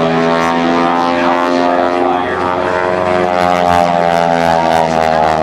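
Pratt & Whitney R-985 nine-cylinder radial engine and propeller of the Showcat aerobatic biplane, running hard in flight. Its pitch drifts slowly down and back up as the plane manoeuvres.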